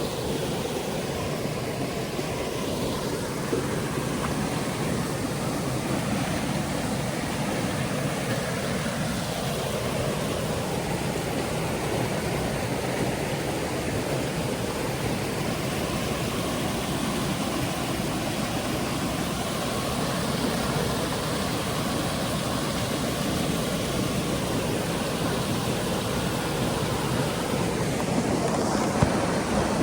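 Steady rushing of a waterfall or mountain stream: an even, unbroken roar of running water.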